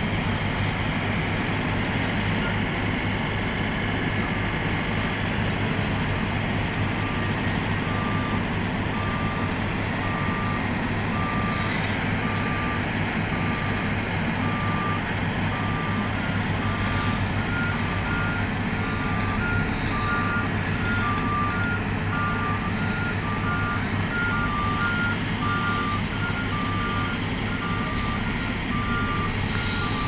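Diesel engines of an XCMG asphalt paver and the dump truck feeding it running steadily. Over them, a backup alarm beeps about once a second from a few seconds in, and a second, higher-pitched alarm joins about halfway through.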